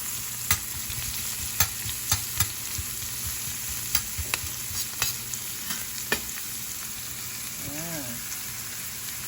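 Onion and garlic sizzling in hot oil in a frying pan, a steady hiss, with a spatula clicking and scraping against the pan every so often as they are stirred.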